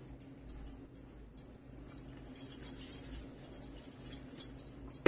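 Light, irregular metallic jingling that grows busier about two seconds in, over a faint steady hum.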